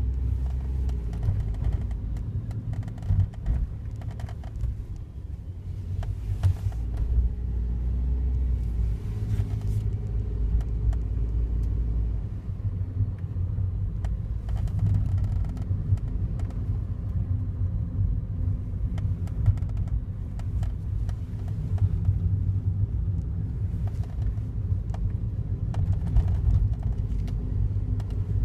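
Daihatsu Wake kei car running, a steady low rumble with irregular sharp clicks and ticks scattered over it throughout. This is the abnormal noise the car developed a month after delivery, which the owner says is worst when the outside temperature is low and whose cause he does not know.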